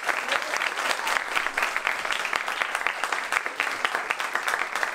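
Theatre audience applauding, many hands clapping steadily.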